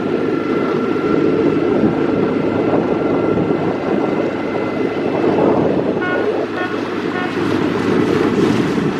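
An engine running steadily under a dense, even rumble, with a few short pitched toots about six to seven seconds in.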